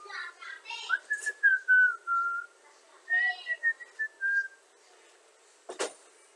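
A person whistling a tune in two short phrases, then one sharp knock near the end.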